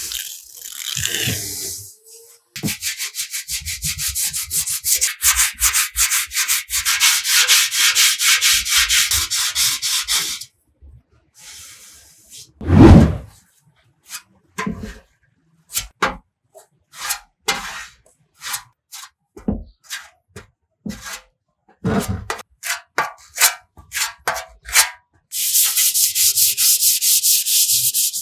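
Hand sanding: fast back-and-forth scratchy strokes, first in a long continuous run, then as separate single strokes, then continuous again near the end. One loud, low thump about halfway through.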